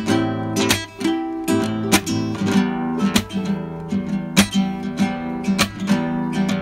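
Background music: an acoustic guitar strumming chords, with sharp strokes landing over held, ringing notes.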